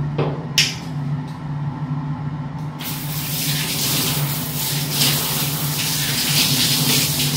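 Handheld shower turned on about three seconds in, its water spraying with a steady hiss, over a steady low hum; a couple of faint clicks come before it.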